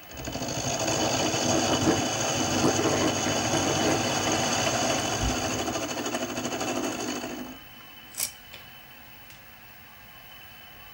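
Benchtop mini milling machine running, its end mill cutting into a metal part held in the vise: the motor comes up to speed and runs with a steady high whine for about seven and a half seconds, then stops abruptly. A single sharp click follows soon after.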